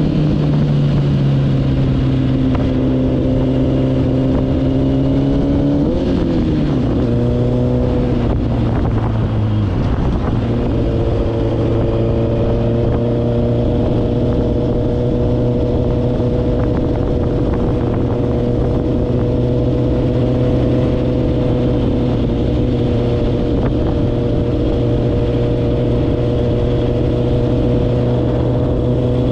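Yamaha Raptor super quad's R1 1000cc inline-four engine running under way. The engine note shifts and dips a few times in the first ten seconds, then holds a steady note that slowly sinks.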